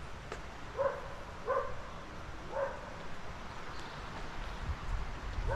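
A dog barking: three short barks in the first three seconds.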